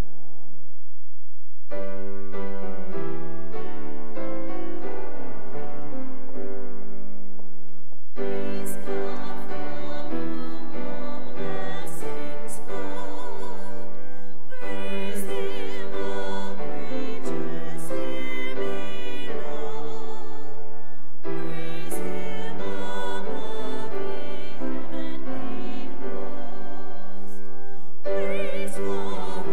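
Classical-style singing with piano accompaniment, the voice held with vibrato in phrases of about six seconds.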